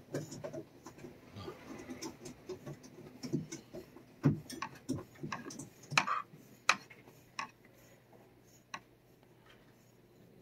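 Light scratching and scattered sharp clicks from a green plastic brush on a long metal stick being rubbed along a cat's face and fur, the clicks most frequent between about four and nine seconds in.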